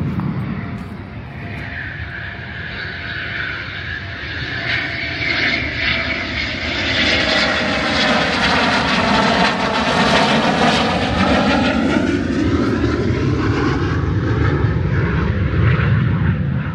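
Fighter jets flying past close overhead on approach to the airfield. The jet noise builds over the first few seconds and is loudest from about seven seconds in to near the end, with a sweeping, phasing rush as they pass over.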